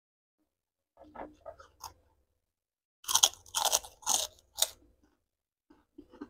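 Close-up eating sounds: softer wet sounds of food being handled and chewed, then four loud crisp crunches in quick succession about three seconds in as a mouthful of crunchy food is bitten and chewed.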